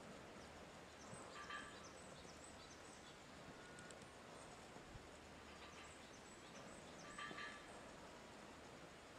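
A small woodpecker pecking at a rotting dead tree trunk, heard faintly as two short rattling bursts, about a second and a half in and again about seven seconds in, over quiet woodland background. The pecking is the woodpecker searching the wood for insects, as the uploader supposes.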